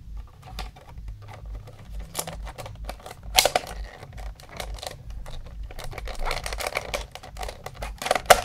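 Hard plastic parts of a Casdon toy Dyson cordless vacuum clicking and knocking as the clear plastic dust bin is worked onto the cyclone unit by hand, with a sharper click about three and a half seconds in and a quick run of clicks near the end.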